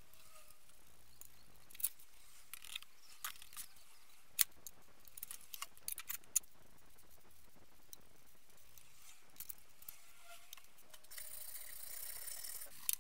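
Light clinks and taps of a rusty steel rack clamp and a paintbrush against a baking tray as rust-remover gel is brushed on, scattered through the first half with a few more later. A soft steady hiss comes in near the end.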